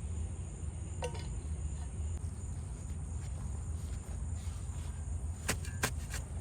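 Outdoor ambience: a steady high insect drone over a low rumble, with a sharp click about a second in and two more near the end.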